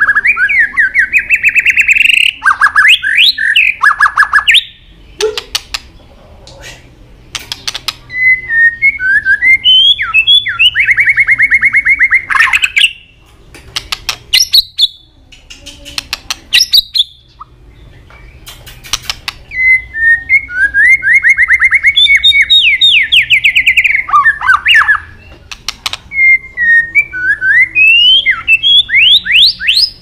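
White-rumped shama singing in four loud bursts of fast, rapidly repeated trilled notes with quick rising and falling whistled sweeps. Between the bursts come sharp, isolated clicking tak calls.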